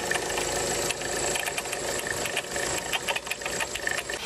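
Car engine running with a jumbled, bearing-like clattering and creaking from the accessory belt pulleys, irregular clicks over a steady engine hum. Typical of a worn belt pulley, most commonly a failing alternator one-way clutch (overrunning) pulley.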